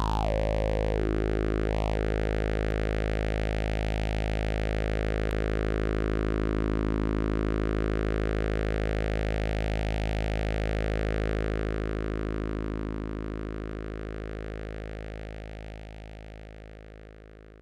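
AnalogFX SER-2020 analog synthesizer holding one low droning note, its filter swept quickly up and down in the first two seconds. The tone then wavers slowly and regularly while it fades out over the last several seconds.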